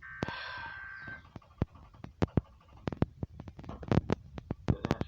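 Emergency Alert System SAME header data burst: about a second of harsh, buzzing two-tone warble that carries the coded alert details ahead of the warning message. After it come irregular crackling clicks and pops over a low rumbling noise.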